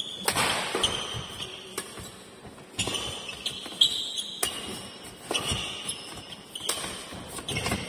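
Badminton doubles rally: sharp racket strikes on the shuttlecock about once a second, mixed with sneaker squeaks and footfalls on the court, in a large echoing hall.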